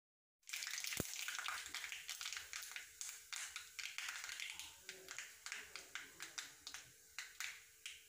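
Mustard seeds spluttering in hot coconut oil in a non-stick kadai. A steady sizzle starts about half a second in, crossed by many sharp pops that thin out toward the end.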